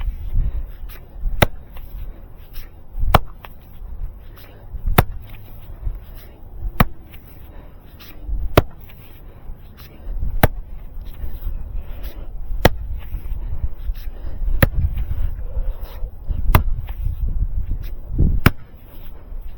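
Mini pick axe chopping into frozen ground, one sharp strike about every two seconds.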